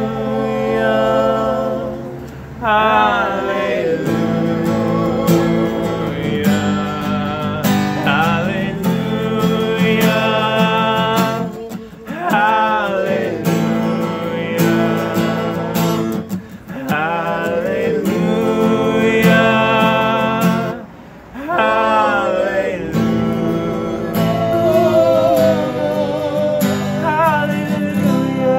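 A man singing while strumming an acoustic guitar, his voice running in long phrases with short breaks between them.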